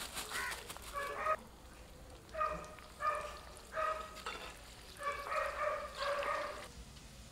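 An animal calling repeatedly: about eight short, pitched calls spread through the seconds. Beneath them, raisins sizzle faintly in hot frying oil in an iron kadai.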